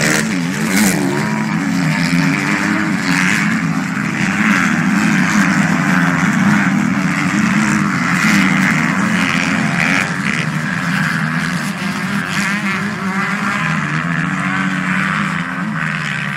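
Motocross motorcycle engines running hard on the track, their pitch rising and falling continuously as they rev.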